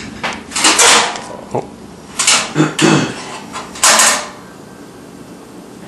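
Several short clattering, scraping bursts as the metal parts of a charcoal kettle grill are handled during assembly, with one sharp click in between, ending about four seconds in.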